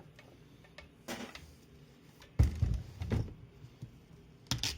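Scattered knocks and clunks of tools and parts being moved about on a workbench, the loudest a heavy thump about two and a half seconds in, followed by another shortly after and a sharp clatter near the end.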